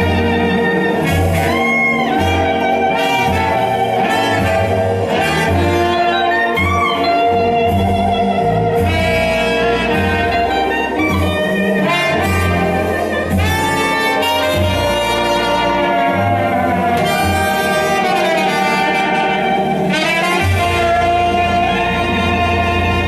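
Jazz-blues band playing, with saxophone and brass lines over guitar and bass.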